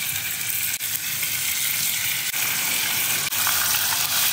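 Strips of bacon sizzling steadily on a hot soapstone cooking slab in a Kamado Joe grill, the sizzle growing a little louder about halfway through.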